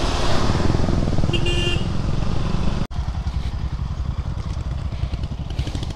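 KTM Duke 200 single-cylinder motorcycle engine running steadily under way, with wind rushing over the helmet-mounted microphone. A vehicle horn toots briefly about a second and a half in, and the sound cuts out for an instant near the middle.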